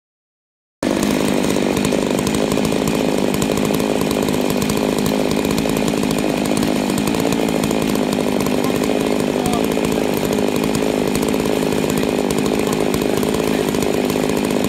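Two-stroke Stihl chainsaws, an MS880 and an MS660 coupled at either end of one long bar in a double-ended chainsaw mill, running steadily at full throttle while ripping a large oak log into a slab. The sound starts abruptly about a second in.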